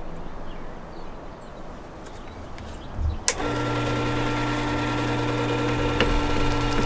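Quiet handling noise, then a click a little before halfway as a Work Sharp electric sharpener switches on, and its motor runs with a steady hum, spinning up for stropping a chisel.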